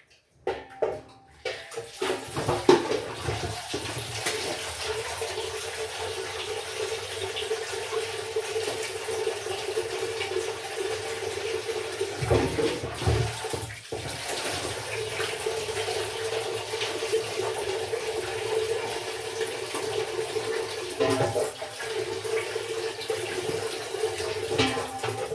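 Water running steadily from a kitchen tap into a sink, starting about two seconds in, with a few knocks and clatters of things being handled under it.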